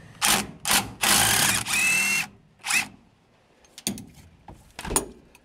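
Cordless drill spinning a long socket extension in several short bursts with a whine, loosening the bolts of the torque tube ball housing collar on a 1949 Chevy 3100 transmission. A few sharp metal clicks follow near the end as the socket is moved.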